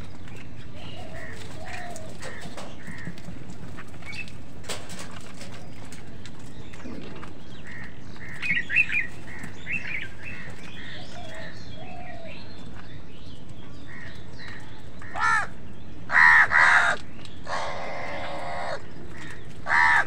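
A flock of house crows cawing, with scattered softer calls at first and a run of loud, harsh caws near the end, one of them drawn out for about a second.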